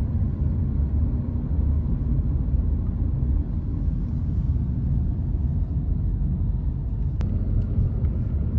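Steady low rumble of a vehicle running, with a single faint click about seven seconds in.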